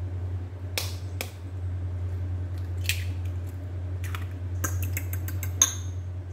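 Eggs being cracked and their shells pulled apart over a ceramic bowl, a few sharp cracks and clicks, then a fork tapping quickly against the bowl as the eggs are beaten, with one brighter clink that rings briefly near the end. A steady low hum runs underneath.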